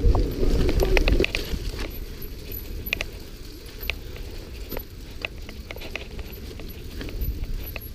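Mountain bike rattling and clicking as it rolls down a bumpy dirt trail, irregular knocks and clatter from the bike under the camera. Wind rush on the microphone is loud at first and cuts off about a second in.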